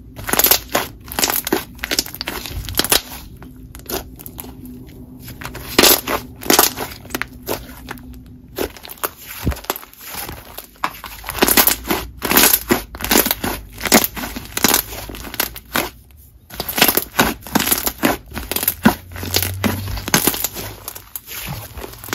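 Hands squishing and stretching a thick, fluffy clay slime, which crackles and pops in irregular clusters with a few short pauses as air pockets in it burst.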